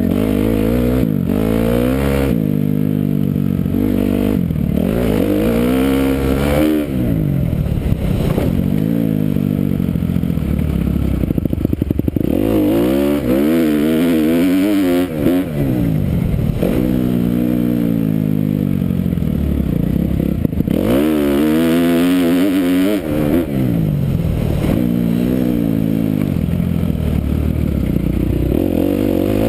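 Kawasaki KX250F's four-stroke single-cylinder engine revving up and easing off again and again as the dirt bike is ridden hard, its pitch climbing and falling every couple of seconds.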